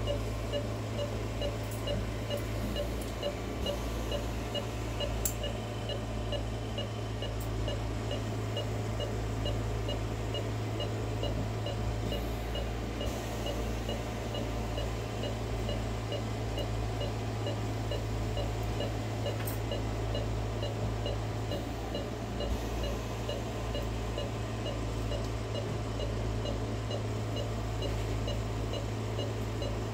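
Anaesthesia patient monitor beeping in a steady, regular rhythm of short high beeps, tracking the anaesthetised dog's pulse, over a continuous low hum of operating-room equipment.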